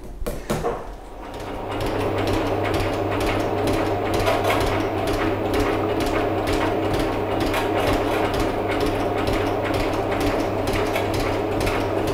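Metal shaper running, its motor humming steadily and the ram stroking in a regular rhythm as the tool cuts a steel bar. The sound builds up about a second in as the machine gets going.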